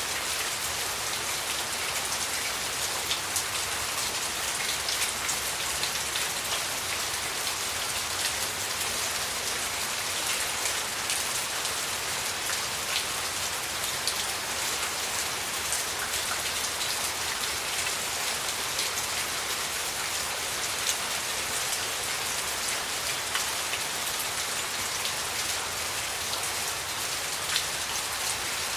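Steady rain falling, with the ticks of single drops hitting close by.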